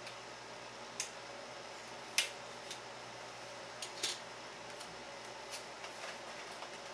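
Hands fastening a paper target to a bookshelf: scattered small clicks and taps, the loudest about two seconds in, over a low steady room hum.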